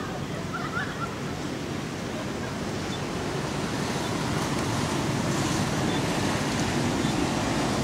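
Steady rushing outdoor background noise, growing a little louder about halfway through. About a second in there are a few faint short squeaks from the young monkeys playing.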